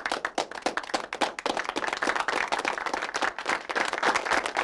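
Applause: many hands clapping, thickening within the first second into a dense, even patter.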